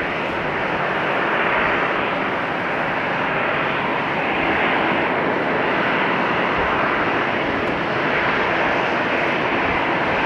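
Airbus A350-900's Rolls-Royce Trent XWB turbofan engines running at low taxi power as the airliner rolls along the taxiway, a steady rushing sound.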